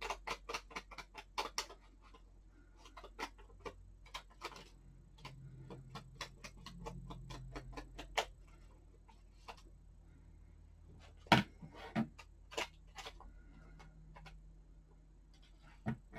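Light, rapid tapping of a small ink applicator dabbed against the edge of a paper sticker and the paper beneath, in quick runs of taps, with a few louder, sharper knocks about two-thirds of the way through.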